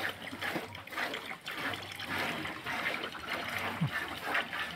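Milk squirting into a bucket as a dairy cow is hand-milked: a steady run of short, hissing squirts.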